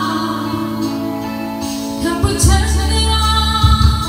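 A song performed live: a woman singing lead into a microphone over electric guitar, with a strong bass line coming in about two and a half seconds in and cymbal-like hits.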